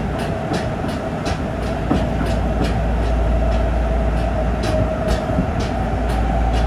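Running sound inside a Nagoya Municipal Subway 5050 series car with Mitsubishi GTO-VVVF traction equipment: a steady rumble and hum with the wheels clicking over rail joints about two to three times a second, growing slightly louder in the second half.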